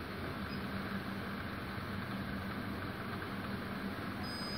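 Steady background hum and hiss, a constant low tone under even noise, with no distinct events.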